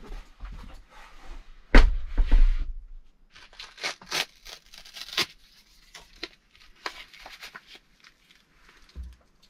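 A heavy thump about two seconds in, then a small paper packet being torn open and crinkled in the hands, followed by scattered light rustles.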